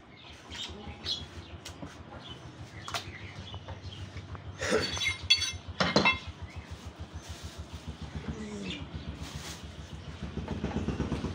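A steady low pulsing of an engine running, under handling noise from a meat stall: scattered light clicks and rustles, and a few sharp clattering knocks in the middle as a knife, meat and plastic bags are handled.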